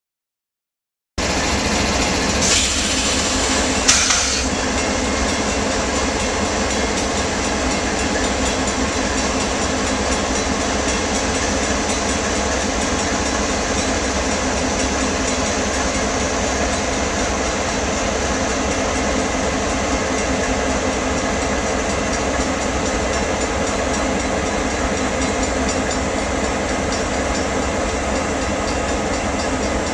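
Iowa Interstate diesel-electric locomotives running at close range, a steady engine sound that starts about a second in. Two brief high-pitched sounds come shortly after it starts.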